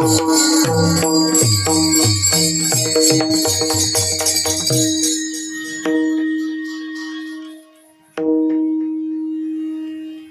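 Instrumental interlude of a devotional bhajan. A held harmonium-like note sounds throughout, with a rhythmic hand-drum pattern and jingling cymbals for about the first five seconds. The held note then fades, breaks off briefly near the eight-second mark, and comes back.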